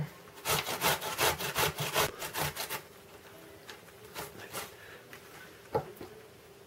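Cucumber being grated on the coarse side of a metal box grater: a quick, even run of grating strokes, about four a second, for some two seconds. Then come a few fainter strokes and a single knock near the end.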